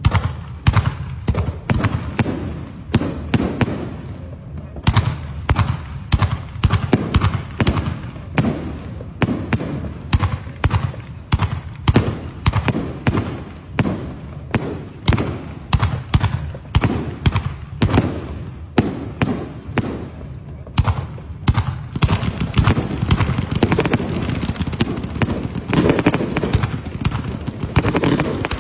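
Firecrackers going off in a long, irregular series of sharp bangs, about two a second. From about three-quarters of the way in, a steady hissing joins the bangs.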